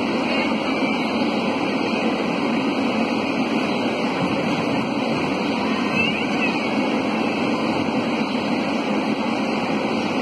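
Steady, even rushing noise with no clear strikes, footfalls or voices standing out above it.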